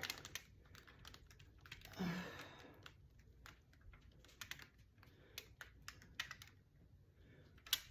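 Faint scattered clicks and light taps of hands handling a canvas as it is tilted, with a brief breathy vocal sound about two seconds in.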